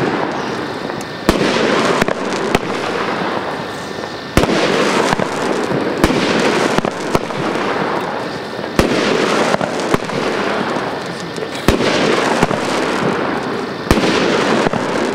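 Blackboxx 'Roter Drache' firework cake firing shot after shot, about one every two seconds. Each shot is a sharp bang followed by a second or two of hissing, crackling noise as the stars burst.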